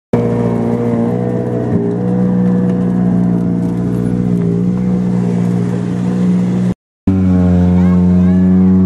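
Ford Fiesta WRC rally car's turbocharged 1.6-litre four-cylinder engine running steadily at low revs, with a brief gap of silence near the end before it carries on.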